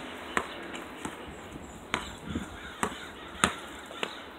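A basketball bouncing on street asphalt, a few sharp bounces at uneven intervals.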